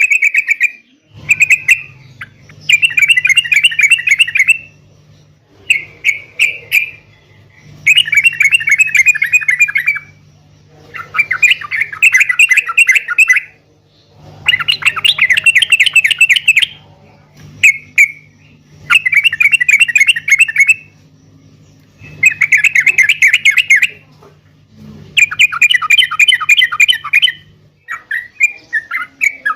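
Yellow-vented bulbul (trucuk) singing: a string of loud, bubbly, chattering song phrases, each lasting one to two and a half seconds, repeated with short pauses between them.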